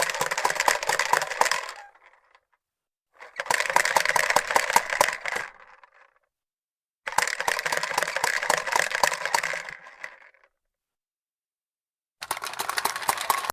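Fisher-Price Corn Popper push toy rolling, its plastic balls popping and clattering against the clear dome in a rapid stream of clicks. It comes in four runs of a few seconds each with short pauses between, the last still going at the end.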